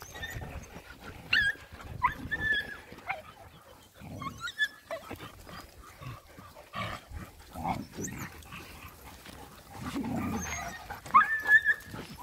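Dogs playing together: several short, high-pitched yelps, the loudest near the end, with lower growly play noises in between.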